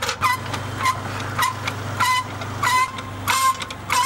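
Nordberg hydraulic floor jack being pumped, squeaking once per stroke at about one and a half strokes a second, over a low steady hum.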